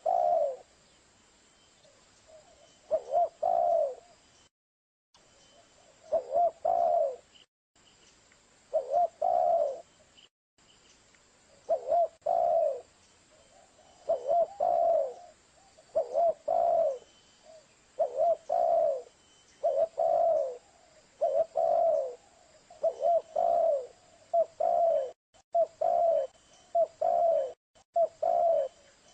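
Spotted dove (tekukur) cooing: a short phrase of two or three coo notes, repeated over and over. The phrases come every two to three seconds at first and then about every second and a half. It is a dove lure call (suara pikat).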